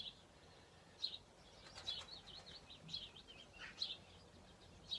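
Faint chirping of small songbirds: short high chirps about once a second, with a quick warbled run of notes about two seconds in, over a faint steady background.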